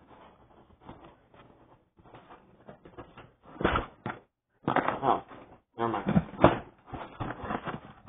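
Toy packaging being handled while a figure is freed from its box: rustling and small clicks, then several louder knocks and clatters in the second half.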